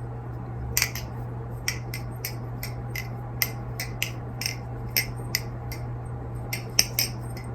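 Aluminium channel-construction balisong (NRB Vortex) being flipped: a quick, irregular run of sharp metallic clicks, about three a second, as the handles swing round and knock against the blade's tang and each other. A steady low hum runs underneath.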